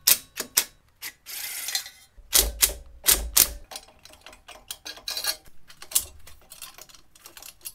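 Hand tools clicking and clinking on metal, a ratchet wrench among them, while the exhaust head pipe fasteners on a Milwaukee-Eight engine are loosened. Irregular sharp clicks with a brief scrape, and a few heavier knocks a couple of seconds in.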